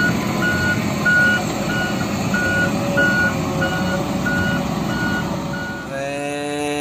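Concrete mixer truck's reversing alarm beeping steadily, about three beeps every two seconds, over the rumble of the truck's engine. Near the end the beeping stops and a held tone with overtones sounds for about a second.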